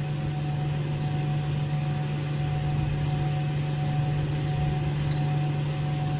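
Steady low electrical hum over a faint, even hiss.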